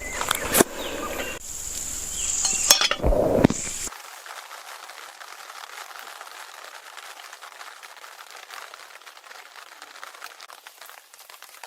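A few seconds of clattering, with sharp knocks and clinks of handled objects, then steady rain pattering in fine, dense drops.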